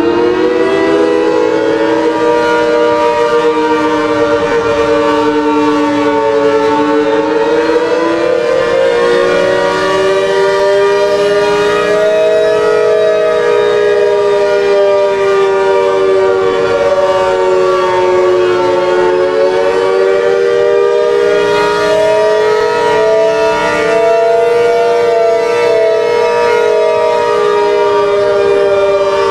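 ACA Hurricane 130 electromechanical outdoor warning siren sounding the attack signal, a loud two-note wail. It climbs in pitch over the first couple of seconds, then slowly wavers up and down, rising and falling about every ten to twelve seconds.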